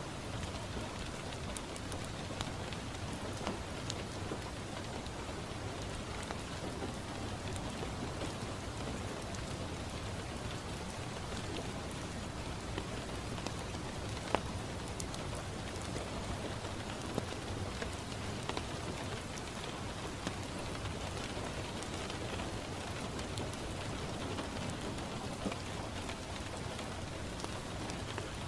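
Steady rain falling on a window pane, with scattered sharp pops and ticks over it; the loudest pop comes about 14 seconds in.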